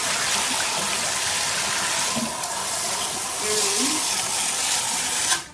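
Water spraying from a handheld shower head, a steady hiss that cuts off suddenly near the end.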